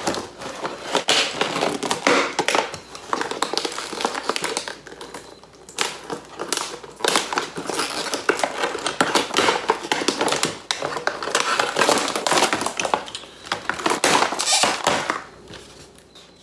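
Cardboard backing card and clear plastic blister bubble of an action-figure package being ripped apart by hand, a run of tearing and crinkling with short pauses. It goes quieter near the end.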